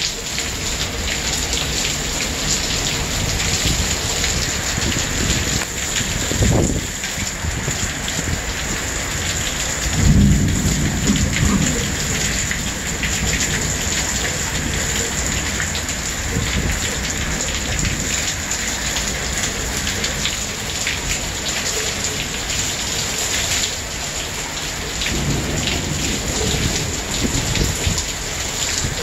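Heavy thunderstorm downpour: dense rain falling steadily. Thunder breaks in about six seconds in, louder about ten seconds in, and again more weakly near the end.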